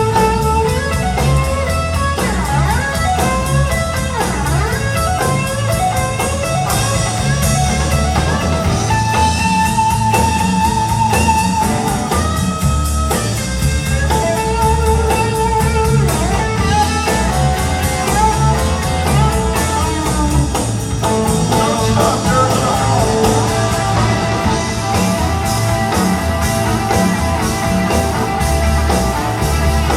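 Live band playing an instrumental break: a lead line of long held notes, some bending in pitch, over guitars, bass and drum kit.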